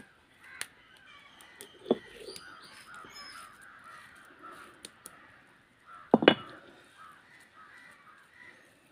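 Crows cawing over a faint chatter of small birds, with a couple of sharp knocks of stone on stone as the roller of an ammikkallu grinding stone is moved on the slab. The loudest knock comes about six seconds in.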